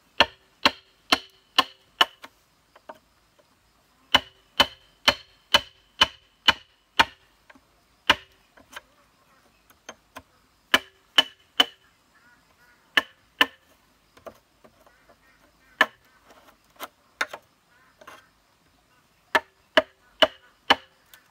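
Wooden club striking a steel chisel to cut a hole through the wall of a thick green bamboo pole: sharp knocks in runs of two to seven, about two a second, with short pauses between runs, each knock with a brief ring.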